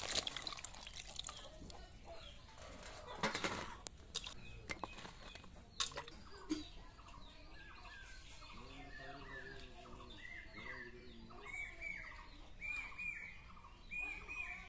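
Water splashing as cut brinjal pieces are washed by hand in a pot, with a few sharp clicks. About halfway through a hen starts clucking, a run of short repeated calls that grows louder near the end.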